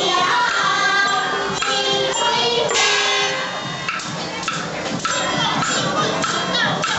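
Chinese traditional instrumental ensemble playing a melody, with two-string bowed fiddles and round-bodied plucked lutes.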